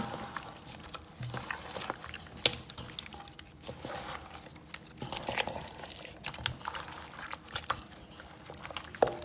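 Hands mixing braised oxtail pieces in buttermilk in a bowl: irregular wet squelches and small clicks, one sharper click about two and a half seconds in.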